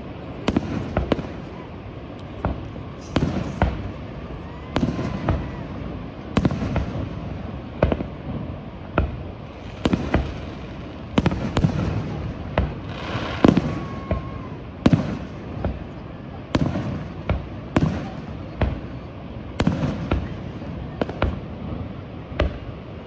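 Aerial fireworks shells bursting in a dense, irregular string of sharp bangs, at times two or three a second, each trailing a short rumbling echo, over steady background noise between the bursts.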